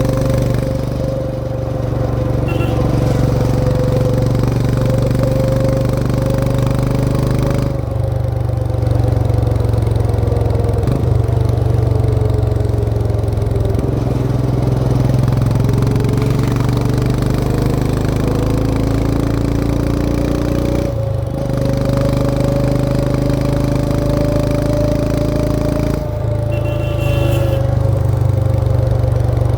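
Royal Enfield Himalayan 411's single-cylinder engine running under way on a ride, its note steady, sagging a little in the middle and climbing again. The note breaks briefly three times: about a quarter of the way in, two-thirds in, and near the end.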